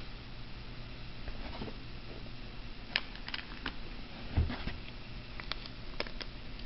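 Quiet handling of plastic coral bags and packing in a cardboard box: a few light clicks and crinkles and a soft bump about four seconds in, over a low steady hum.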